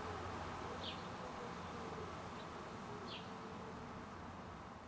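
Faint outdoor ambience: an insect buzzing, with a few short, falling bird chirps, slowly fading out.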